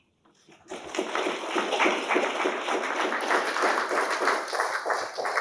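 Audience applauding, a dense steady patter of many hands clapping that begins after a brief silence about half a second in.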